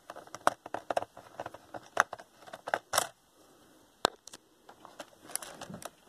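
Plastic bottom access panel of a Gateway MT6460 laptop being worked loose and pulled off by hand: irregular small clicks, taps and scrapes, with a stronger cluster around two to three seconds in.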